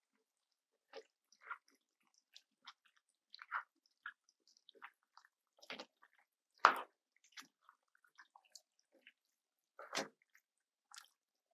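Faint, scattered clicks and soft pops from a pot of pasta, shrimp and creamy sauce as shredded Parmesan cheese goes in, with two louder knocks about seven and ten seconds in.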